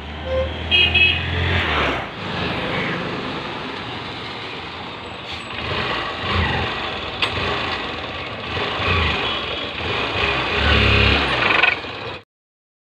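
Motor vehicle engine running, with a stronger low rumble in the first second or so and again near the end, then cutting off suddenly.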